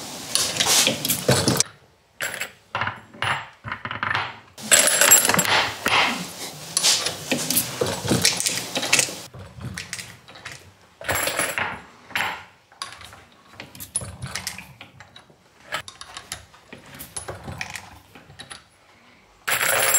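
Reloading press being worked to punch the spent primers out of fired brass rifle cases, with the brass cases clinking as they are handled: an irregular series of metallic clicks, knocks and clatters.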